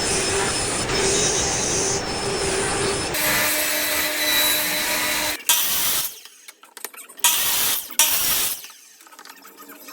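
Woodworking power tools running in a string of short clips: a steady whirring machine for about five seconds with an abrupt change partway, then three brief loud bursts separated by quieter gaps.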